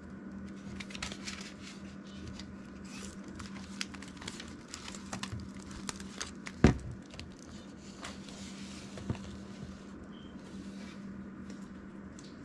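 Paper banknotes and a clear plastic binder envelope rustling and crinkling as cash is counted and slipped in, with one sharper knock a little past halfway. A faint steady hum runs underneath.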